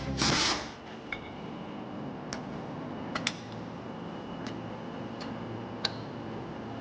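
Sparse light metallic clicks and taps from small engine parts and tools being handled during engine work, over a steady low room hum. There are about seven clicks, two of them close together about three seconds in. Background music fades out in the first second.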